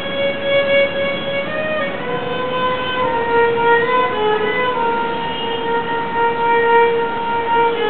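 Solo violin played by a boy, bowing a slow melody of sustained notes, with one long held note over the last few seconds.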